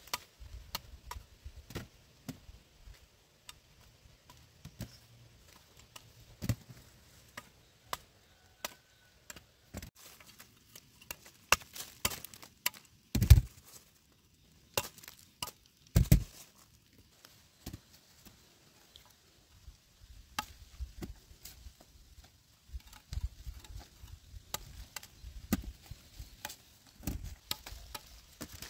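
Machete chopping cassava roots free of their stems: an irregular series of sharp chops and knocks, with two much heavier thumps about halfway through.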